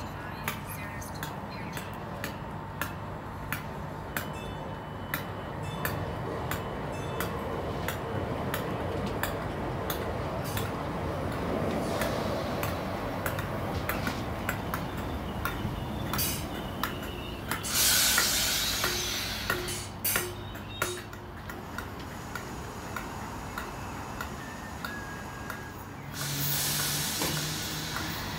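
Class 320 electric multiple unit pulling into the platform: a steady traction hum with irregular clicks from the wheels. Once it has stopped come two loud bursts of compressed-air hiss, one about 18 seconds in and another near the end.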